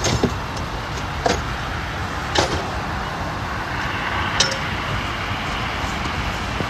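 Steady rumble of highway traffic, with four sharp knocks spread over the first few seconds as roadside tools and a jack are put away.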